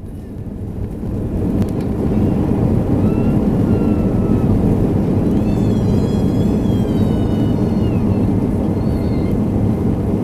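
Airbus A320's CFM56 engines in reverse thrust during the landing rollout, heard from inside the cabin: a loud, steady low roar that builds over the first two seconds and then holds, with faint high whining tones above it in the middle.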